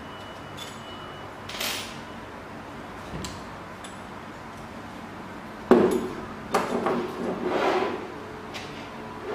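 Handling noise from a 3D printer's extruder assembly being taken apart: a sharp knock a bit past halfway, then several clunks and rubbing as the metal and plastic parts are moved about and the extruder stepper motor is set down.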